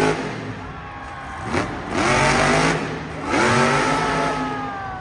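Monster truck's supercharged V8 revving in repeated bursts, each one rising sharply in pitch. Near the end the engine winds down with a slowly falling tone.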